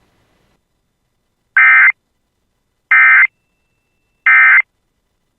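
Emergency Alert System end-of-message signal: three short, harsh bursts of digital data tones, each about a third of a second long and about a second apart. This marks the end of the alert broadcast.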